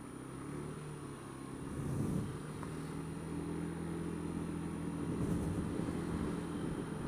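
Honda Dio scooter engine running under way, its note settling to a steady pitch about two seconds in. Short gusts of wind buffet the microphone.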